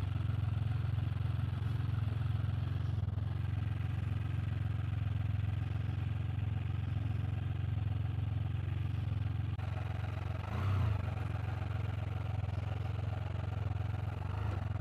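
Can-Am Spyder F3 Limited's three-cylinder engine running steadily, a low even drone, with a brief small swell a little past ten seconds in.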